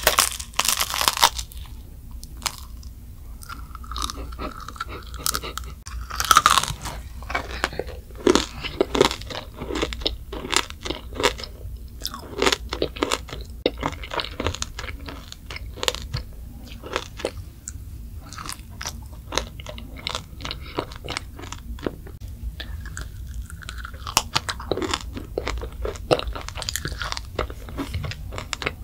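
A child biting into and chewing a candied macaron (macaron tanghulu) whose hardened sugar glaze cracks: many quick, crisp crunches in irregular succession, with chewing.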